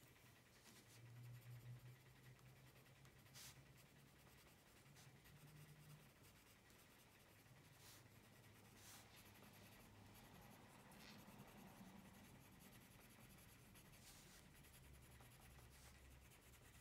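Faint scratching of a Faber-Castell Polychromos coloured pencil shading on colouring-book paper, with a few light ticks.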